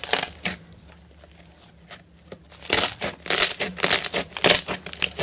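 Slime being squeezed and pressed by hand close to the microphone, giving sharp crackling and squishing pops in bursts: a short cluster at the start, a quieter pause, then a dense run of crackles from about halfway on.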